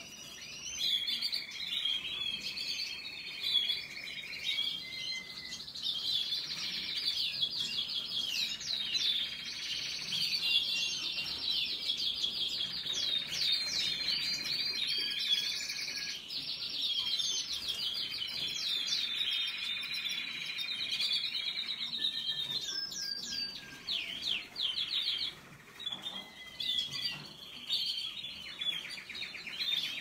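Canaries singing: a continuous run of rapid trills and chirps, with long rolling trills of a second or two each, thinning briefly a little before the end.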